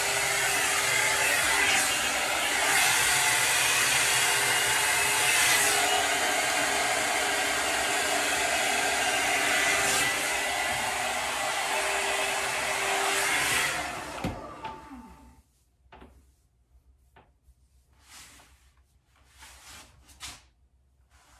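A small electric motor running steadily with a loud rush of air. About fourteen seconds in it is switched off and winds down with a falling whine, leaving a few faint short rustles.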